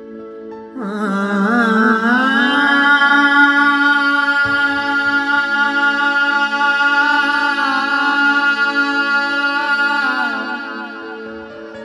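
A male naat singer holds one long note for about nine seconds, wavering as it starts and again as it ends, over a steady instrumental drone.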